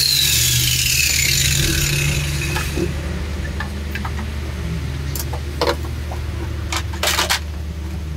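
Handheld electric grinder running steadily on the van's bare steel floor, with a high whine that slides down over the first two seconds and a few sharp scrapes and knocks of metal on metal.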